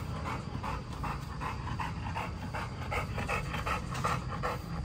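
A large brown bully-type dog panting hard with its mouth open, quick even breaths at about four a second.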